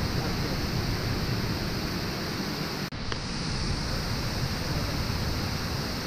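Steady rushing of a waterfall running high after heavy rain, with a brief dropout about three seconds in.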